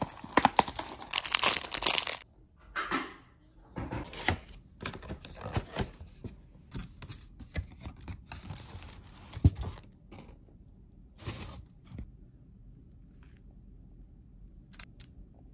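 Cardboard ice-cream box being torn open, then crinkling aluminium foil as a cake's foil wrapping is unfolded, in irregular rustling bursts that die away after about twelve seconds. A few faint clicks near the end.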